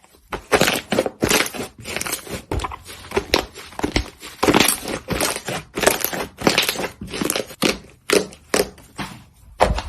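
Slime being squeezed and pressed, giving an irregular run of sharp crackling and crunching pops.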